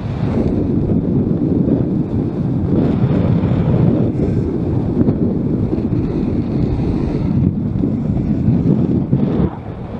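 Wind buffeting the microphone of a camera moving along a road: a steady low rushing noise that eases a little near the end.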